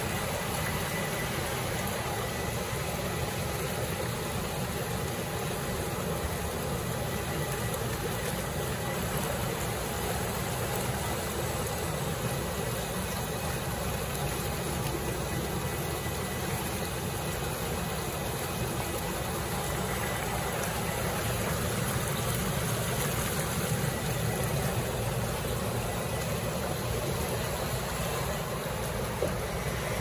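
Industrial meat washing machine running: water churned by air bubbles and spray in the wash tank, with its pumps and conveyor making a steady mechanical noise.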